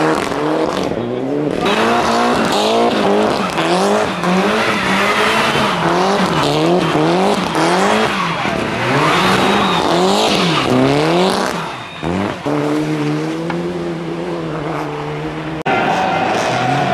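Rally cars' turbocharged four-cylinder engines, Mitsubishi Lancer Evolutions, revving hard up and down in rapid, repeated swings as they slide and spin on snow. Past halfway the revs hold steady for a few seconds, then the sound cuts abruptly to another car.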